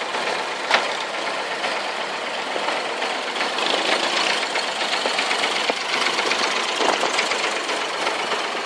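Diesel engine of a wooden abra water taxi idling with a steady knocking clatter while moored at the landing, with a sharp knock about a second in.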